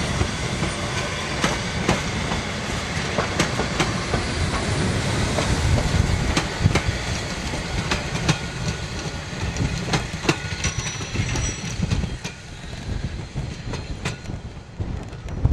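Harz narrow-gauge railway passenger carriages rolling past, their wheels clicking over the rail joints over a low rumble. The sound fades in the last few seconds as the train draws away.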